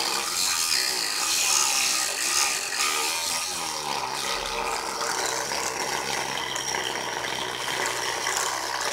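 Homemade hair dryer running: a small electric motor powered at 19 volts spins a metal-plate propeller inside a plastic pipe, making a steady mechanical whir.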